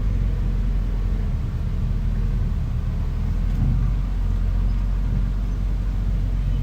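Bulldozer's diesel engine running steadily with a deep, even rumble.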